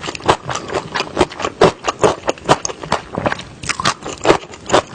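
Close-miked eating: chewing with sharp, wet clicking and crunching mouth sounds, about three to four a second at an irregular pace.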